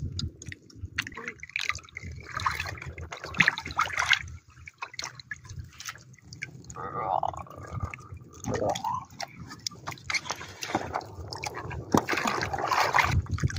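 Water dripping and splashing in scattered small strokes as a gill net and fish are handled by people standing in the water.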